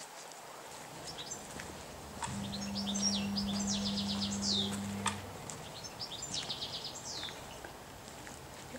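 A songbird singing: phrases of quick repeated high notes, each ending in a downward sweep, heard twice. A low steady hum runs under the first full phrase.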